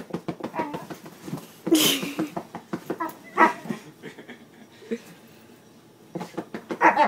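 Siberian husky vocalizing in a string of short barks and whines, the loudest and harshest about two seconds in, more near the end.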